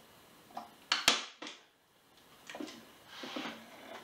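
Staple gun firing staples through nylon webbing into a wooden canoe-seat frame: two sharp snaps about a second in. Then comes a softer rustle and knocking as the webbed frame is handled.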